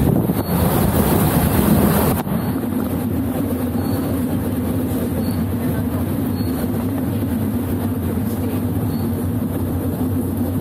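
A river tour boat's engine running steadily with a low, even hum, and a rushing hiss on top that cuts off abruptly about two seconds in.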